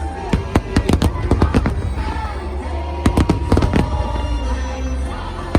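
Fireworks bursting overhead: many sharp, irregular bangs and crackles over a steady low rumble, with music playing underneath.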